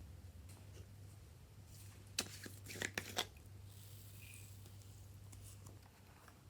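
Clay slime being worked by hand, with a quick cluster of sticky crackles and pops a little over two seconds in, over a low steady hum.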